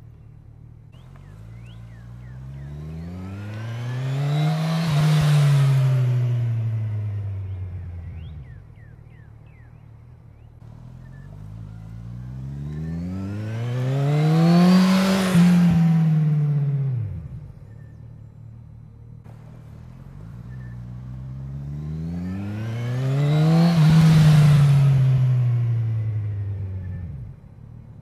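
2018 Kawasaki Ninja 1000's inline-four engine making three pass-bys. Each time the engine note climbs in pitch and loudness as the bike comes past, peaks, then drops back down as it goes away.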